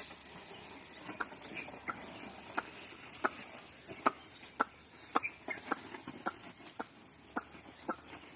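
A run of short, sharp clicks or knocks, roughly two a second and slightly irregular, from a pair of oxen pulling a plough, with a few faint bird chirps.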